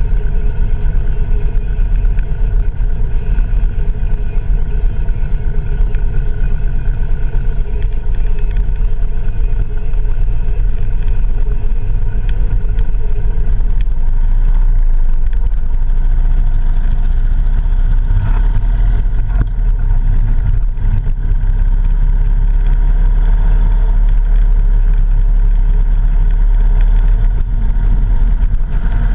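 Motorcycle on the move at a steady pace: its engine running under a heavy, continuous low rumble of wind and road noise.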